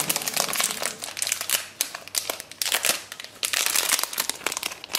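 A shiny pink plastic toy wrapper being crinkled and pulled open by hand, a dense, irregular crackling throughout.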